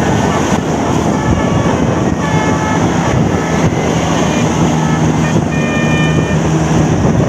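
Bus 'telolet basuri' musical air horn playing a quick tune of short changing notes over loud engine and road noise, with a low engine hum in the middle.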